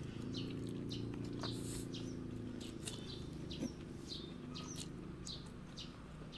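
Small birds chirping repeatedly in short, high chirps, over a low steady hum that fades after about three seconds.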